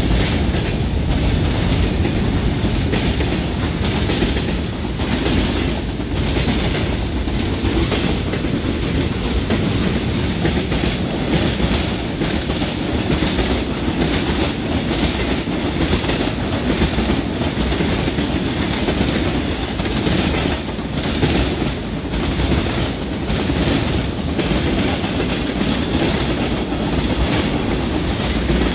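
Freight train of tank cars and covered hoppers rolling past: a steady rumble of steel wheels on rail, with repeated clicks as the wheels cross rail joints.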